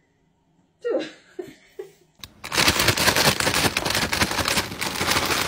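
A foil Walkers crisp packet being crinkled and rustled right at the microphone: a dense, loud crackle that starts about two seconds in. It is preceded by a few short vocal sounds.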